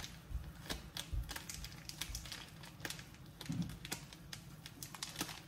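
Scattered light, irregular clicks and crinkles of a packet of maize flour being handled and tipped.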